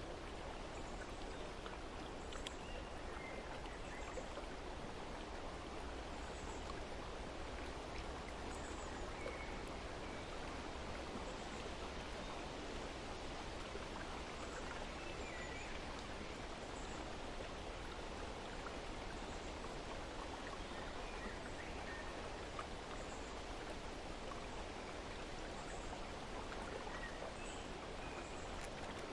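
Steady outdoor nature ambience of running water, with faint, brief bird chirps scattered throughout.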